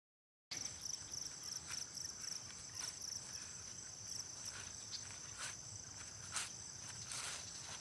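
Crickets chirping in a steady high-pitched pulsing chorus, starting suddenly about half a second in after dead silence, with a few soft ticks over it.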